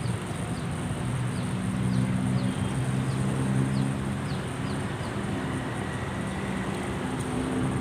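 A steady low engine hum runs throughout, with a run of short, high, falling chirps in the first half and a constant thin high-pitched ringing above.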